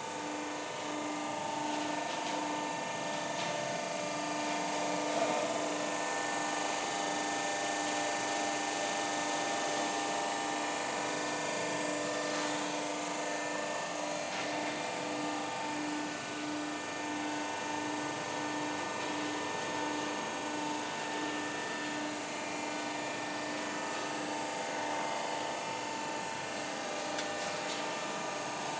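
Benson hydraulic guillotine's electric motor and hydraulic pump running steadily with a constant whine and hum.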